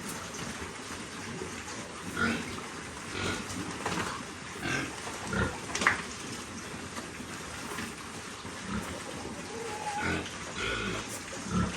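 Hungry piglets grunting and squealing in short calls that come at uneven intervals, several within a few seconds, over a steady background hiss.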